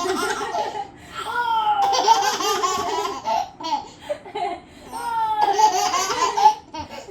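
A baby laughing in three long bursts of belly laughter, at the start, in the middle and near the end.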